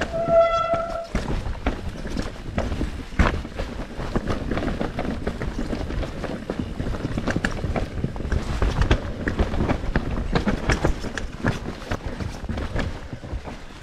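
Mountain bike being ridden fast down a rough, rooty trail: steady tyre and trail noise with frequent knocks and rattles from the bike. In the first second the brakes give a short high squeal, the squeaky brakes the rider mentioned.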